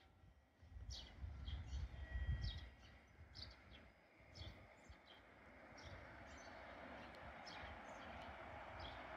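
Birds chirping in short, repeated high calls, with a low rumble a second or two in. From about halfway, a faint steady noise slowly builds as a freight train approaches.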